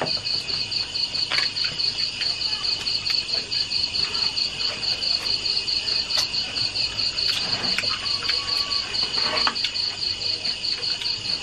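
Crickets chirping in a steady, evenly pulsed high chorus, with a second steady high trill beneath it.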